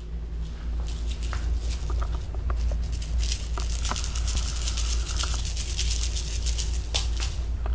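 Light, irregular pattering and scratching from kittens playing with a wand toy on a tile floor, busier from about three seconds in, over a steady low hum.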